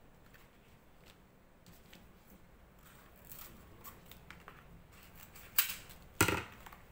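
Scissors snipping through fresh green leaves, with faint scattered crinkling of the leaf. Two louder, crisp sounds come about half a second apart near the end.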